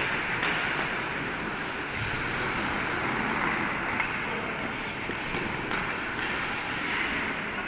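Ice hockey play: a steady scraping hiss of skate blades on the ice, with a few sharp clacks of sticks and puck, the loudest about four seconds in.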